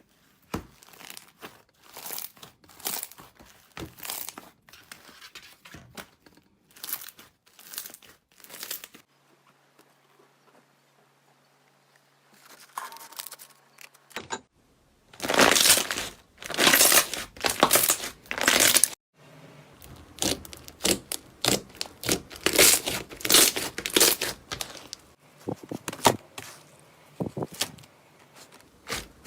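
Slime being pressed and worked by hand, crackling and crinkling in repeated short bursts; the bursts pause briefly about a third of the way in, then come back louder and denser.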